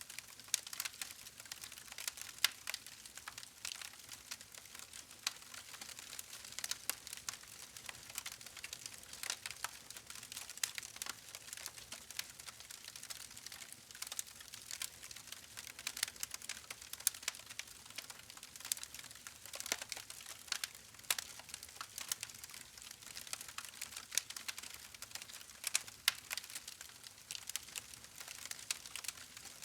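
Campfire burning with a steady hiss and frequent irregular crackles and small pops from the burning wood.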